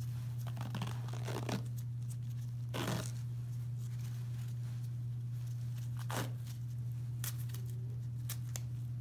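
Self-adherent elastic bandage (Coban) being pulled off its roll and wrapped around a foot, giving several short crackling tearing peels, the strongest about three and six seconds in, over a steady low hum.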